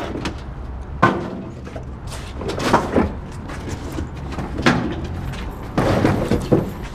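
Camera handling noise outdoors: several sudden knocks and rustles over a steady low rumble.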